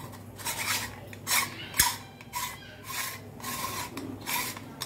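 Aluminium murukku press being handled and assembled, its metal parts scraping and rubbing against each other in a series of short rasps. There is a sharp metallic clink a little under two seconds in.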